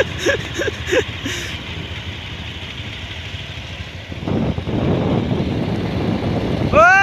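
Motorcycle running on the move with wind rushing over the microphone, growing louder about four seconds in. Near the end there is a loud, held pitched sound.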